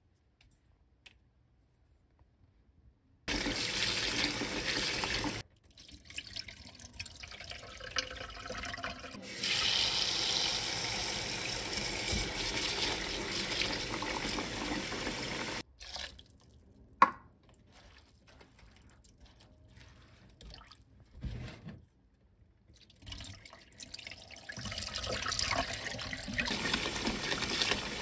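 Kitchen tap running into a stainless steel bowl of stonecrop greens as they are washed, starting about three seconds in and stopping and starting several times. A single sharp knock stands out near the middle.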